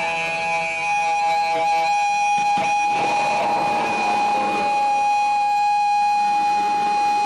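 Live band music: an electric guitar through an amplifier, with a steady ringing tone and a few drum hits about two and a half seconds in.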